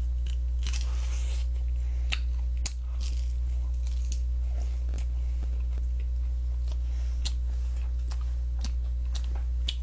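A person biting and chewing fried chicken held in the hands, tearing the meat off the bone, with many short wet smacks and clicks, over a steady low electrical hum.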